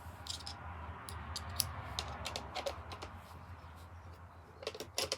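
A screwdriver turning out a screw from a Kirby Sentria 2 vacuum's motor unit: scattered small clicks with scraping over the first few seconds, then a quick cluster of clicks near the end.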